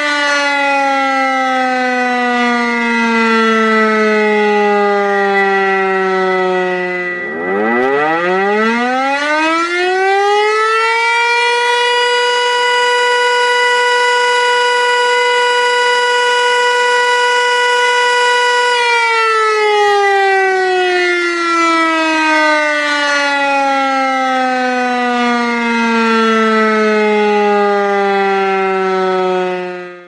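Civil defense warning siren winding down, then winding back up about seven seconds in to a steady wail that holds for about eight seconds before it slowly winds down again. A thin steady high tone runs under it, and the sound cuts off at the end.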